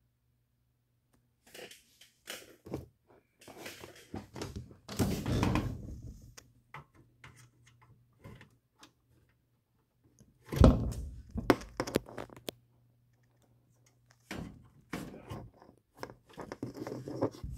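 Irregular knocks, clicks and rustling as audio cables are handled and RCA plugs are pushed onto metal RCA jacks, with the loudest thump about halfway through. A faint steady low hum runs underneath.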